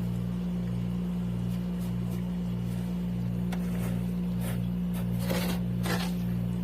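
Freezer frost and ice chunks being scraped and broken: a few short, scattered scrapes and cracks, the last two the loudest, over a steady low hum that pulses about twice a second.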